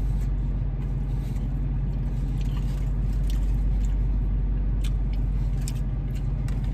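Steady low hum of a car engine idling, heard from inside the cabin, with a few faint clicks of chewing and of hands on a burger.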